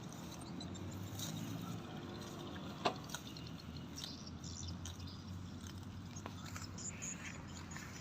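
Cattle eating: scattered crunching and tearing of fodder over a steady low hum, with one sharp click about three seconds in.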